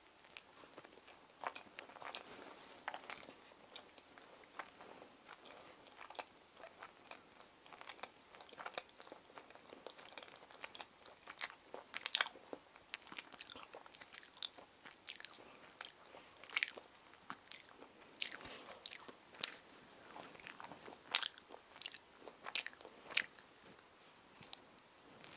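A child chewing and biting a sandwich close to the microphone: irregular small mouth clicks and smacks, some of them sharper and louder through the middle and later part.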